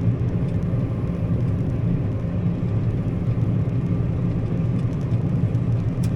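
Combine harvester running steadily while cutting soybeans: an even, low mechanical drone.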